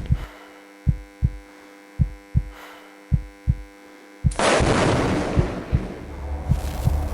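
Heartbeat sound effect: paired low thumps about a second apart over a steady electric-sounding hum. A little over four seconds in, a loud hissing rush cuts in suddenly and carries on over the heartbeat.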